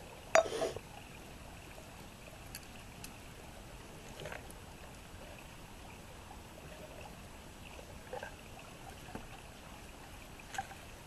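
Small stick campfire burning under a thin metal mess-kit pot, a low steady hiss with scattered faint crackles and pops. A louder clunk about half a second in as the pot is handled.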